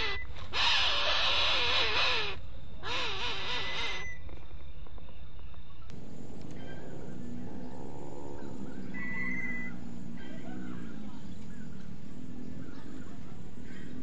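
Coucal chicks in the nest giving wavering, whining begging calls: loud for the first four seconds, then after a short break fainter wavering calls from about six seconds on.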